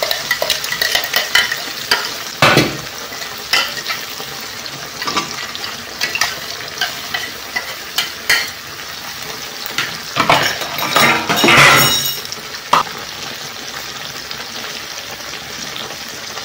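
Masala paste frying and sizzling in hot mustard oil in an aluminium kadai, with metal utensils scraping and clinking against the pan and bowl. The scraping and sizzling get louder for a couple of seconds around ten seconds in.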